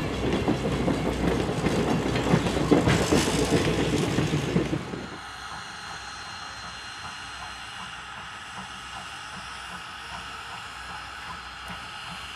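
Passenger coaches rolling past close by, their wheels clicking over the rail joints. About five seconds in this gives way to the much fainter, steady sound of the steam train running at a distance.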